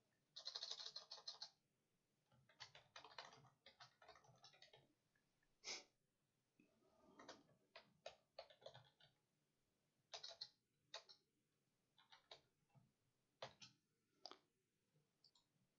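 Computer keyboard typing, faint, in irregular runs of keystrokes separated by short pauses.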